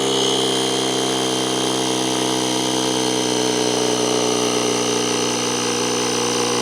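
Portable air compressor built into a jump starter running steadily, inflating a scooter's 8.5-inch rear inner tube. It gives a loud, even, unchanging drone.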